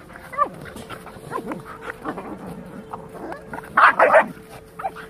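A Labrador puppy and a Rottweiler tussling, with short yelps, whimpers and growly calls. A falling yelp comes about half a second in, and the loudest harsh outburst comes just before four seconds.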